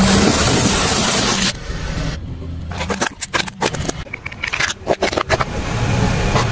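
Car tyre crushing things: a dense crunching of crumbly dry food for about a second and a half, then a run of sharp cracks and snaps as plastic toys break under the tyre.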